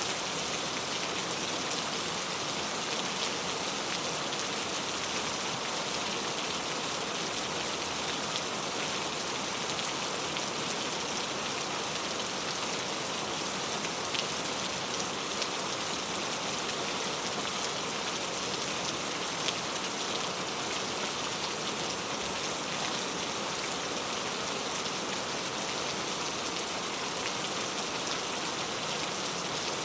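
Steady rain falling, with individual drops pattering on a surface; an even, unbroken hiss with scattered small drop ticks.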